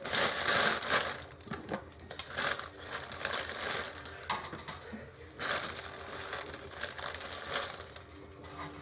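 A plastic bread bag crinkling and rustling in irregular bursts as coated chicken strips are pulled out of it.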